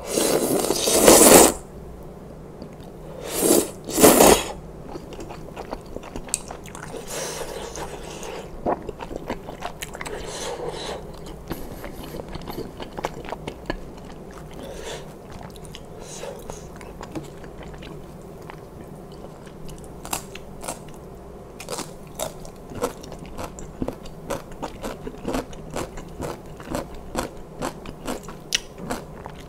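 A person slurping wheat noodles from spicy kalguksu soup, loud and rushing for about a second and a half at the start, then two short slurps a couple of seconds later. After that comes steady chewing, with many small wet clicks and smacks of the mouth.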